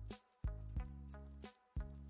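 Background music: pitched instrumental notes over a regular beat.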